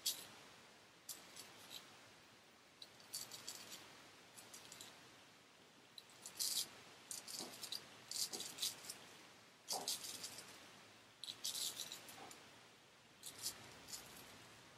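T.R. Cadman & Sons 'Bengall' narrow hollow-ground straight razor scraping through lathered stubble in short strokes, a crisp rasp with each pass, coming in clusters of a few strokes with brief pauses between them.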